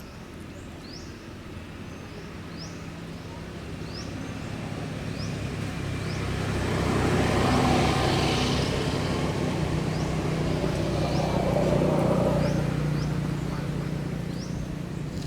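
A motor vehicle passing on a nearby road, its engine and tyres growing louder to a peak about halfway, with a second swell a few seconds later before fading. Short high rising chirps repeat about once a second over it.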